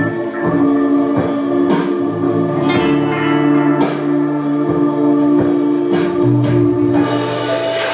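Live instrumental music: an electric guitar playing with a cello, the cello holding long low notes. A few sharp percussive hits cut through it.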